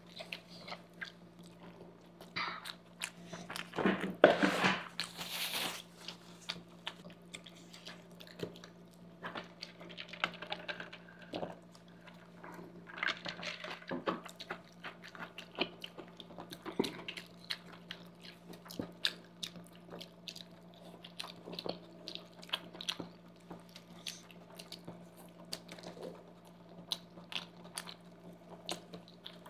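Close-up mouth sounds of two people chewing soft sauced pasta: wet smacks and clicks at an uneven pace, with a louder noisy stretch about four to five seconds in, over a faint steady hum.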